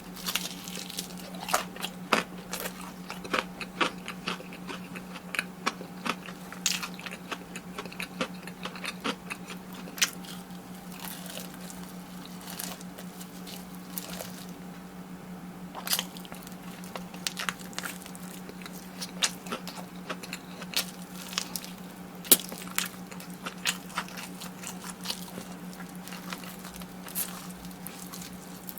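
Close-miked chewing and biting of fried chicken: irregular crunches and wet mouth sounds over a steady low hum.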